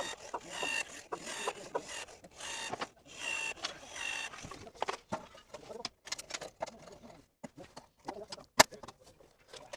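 Aluminum sill pan being handled and set into the door's rough opening: scattered knocks and clicks, with one sharp, loud click near the end. Birds chirp during the first half.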